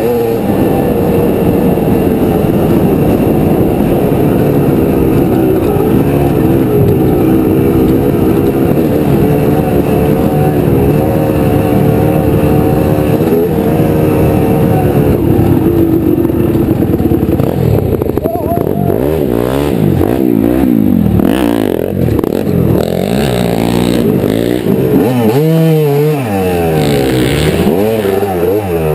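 Honda CR250 two-stroke dirt bike engine running under way, steady in pitch at first. From about two-thirds in it revs up and down repeatedly as the throttle is worked.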